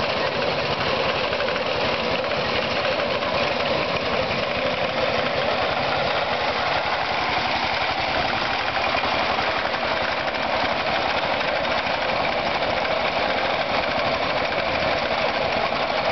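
Power tiller engine running steadily while it pushes a front-mounted reaper through standing crop, with the fast clatter of the reaper's cutter bar over it.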